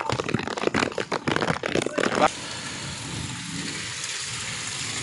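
Heavy rain: close, irregular crackling and tapping for about two seconds, then a steady rain hiss.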